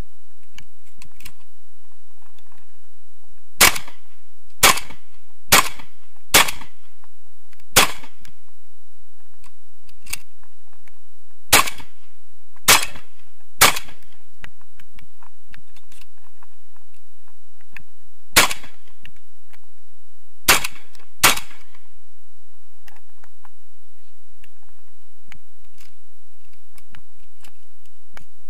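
Shotgun fired eleven times in quick groups: four shots about a second apart, a single shot, three more about a second apart, another single, then two close together. Faint clicks of shells being loaded come between the groups.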